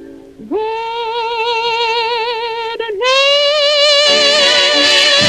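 A tenor sings the song's final word, "goodnight," as two long held notes with vibrato. The second note, which starts about three seconds in, is higher.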